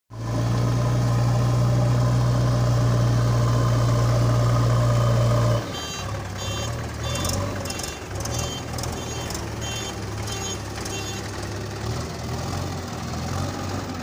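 Diesel engine of a JCB 3DX backhoe loader running, loud and steady for about the first five and a half seconds, then dropping suddenly to a lower running sound. From about six to eleven seconds in, a reversing alarm beeps about twice a second.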